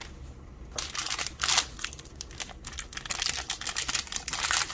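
Small plastic blind-bag wrapper crinkling as it is pulled and torn open by hand, starting about a second in with a louder rip shortly after.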